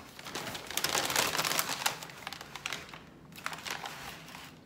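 Takeaway food packaging (paper bag and foil wrapper) crinkling and rustling, heaviest in the first couple of seconds and then thinning to a few scattered crackles.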